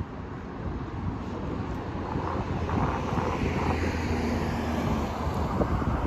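City street ambience: traffic running past, with wind buffeting the microphone.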